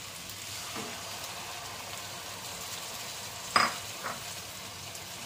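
Onions and tomatoes frying in oil in a deep pan, a steady sizzle, as ground red chilli paste is poured in. A sharp knock comes about three and a half seconds in, with a fainter one just after.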